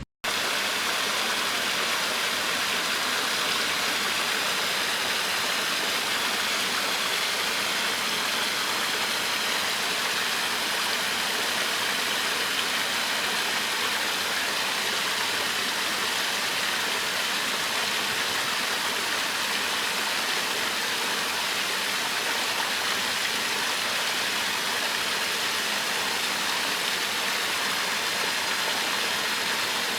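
Steady rush of flowing water, a stream or small fall of water running evenly, which starts just after a momentary dropout at the very beginning.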